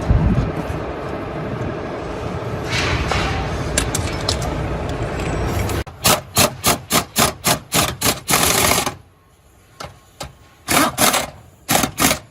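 A steady noisy background for the first half, then a quick run of rasping, scraping strokes at about three a second, ending in one longer stroke. Two short pairs of the same strokes follow near the end.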